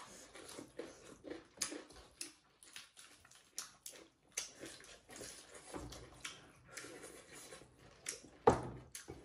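Close eating sounds: chewing, lip smacks and crisp crunches as people eat buffalo meat, rice and raw lettuce leaves with their fingers, a steady run of short clicks with one louder knock near the end.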